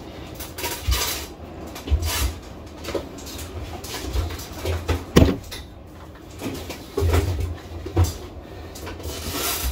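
Scattered light knocks, clicks and rubbing, with one sharper knock about five seconds in.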